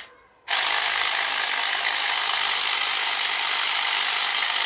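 A small mechanism running with a steady, even rattling whir that starts about half a second in, after a brief sharp burst right at the start.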